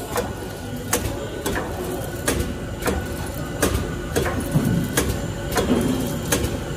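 Pen-refill silicone oil filling machine running: a steady low hum with sharp mechanical clacks about one and a half times a second as it cycles.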